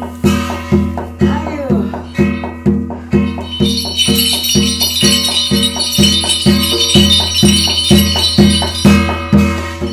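Korean shamanic ritual music: a drum beating steadily about twice a second over sustained ringing tones, with bells jingling in from about three and a half seconds in.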